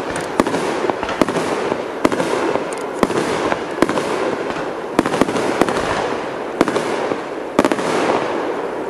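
Fireworks display: aerial shells bursting in irregular sharp bangs, roughly one a second, over a continuous dense crackle.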